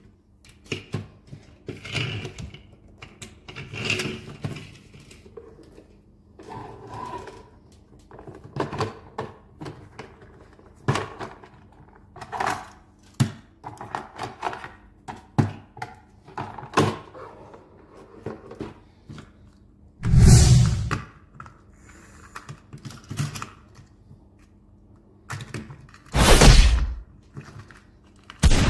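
Hard plastic toy trains and wagons being handled and set down on a table: scattered clicks, clacks and knocks, including a hinged plastic carriage roof being opened. Two louder, heavier thumps come in the last third.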